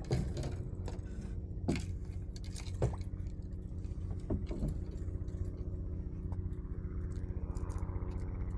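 A few knocks and clicks of a fishing rod, tackle and a freshly landed fish being handled against a kayak's hull, over a steady low hum.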